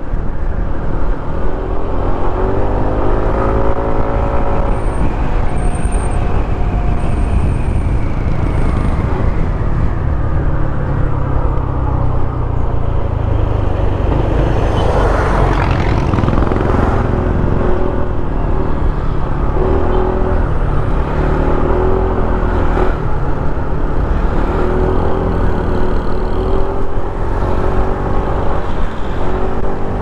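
KYMCO KRV 180 scooter's single-cylinder engine running on the road, its pitch rising and falling with the throttle, over heavy wind and road rumble. A brief rush of noise about halfway through.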